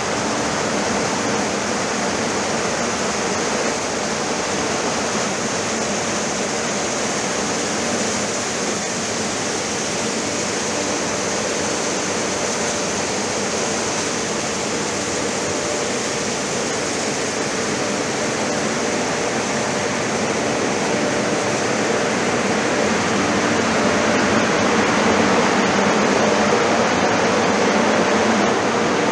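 Corn grain dryer running: a steady rushing noise with a faint low hum, growing slightly louder in the last several seconds.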